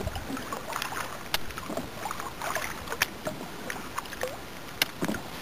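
Kayak paddling: paddle strokes splashing and dripping water, with a few sharp knocks and drips.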